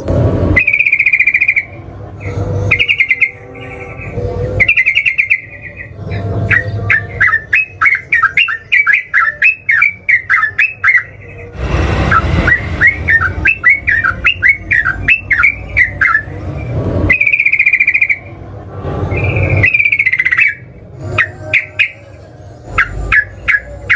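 Sooty-headed bulbul (trucukan) singing its rapid chattering song: short clear phrases, then two long fast runs of bubbly notes, one a few seconds in and another near the middle.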